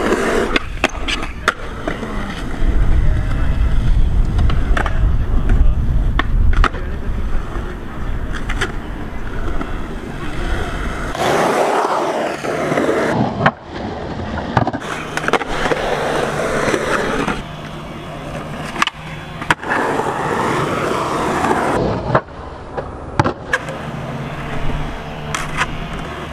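Skateboard wheels rolling over a concrete skatepark, with the sharp clacks of tail pops and boards slapping down on landings scattered throughout. The rolling rumble is loudest in the first half.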